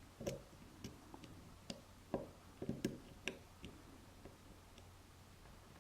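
Irregular light metallic clicks and ticks of a lock pick and tension tool working the pins inside a cheap dimple lock cylinder. Most fall in the first four seconds, then only faint ones.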